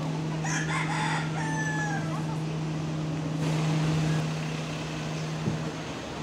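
A rooster crowing once: a few short notes, then a long drawn-out note that drops at the end, over a steady low hum.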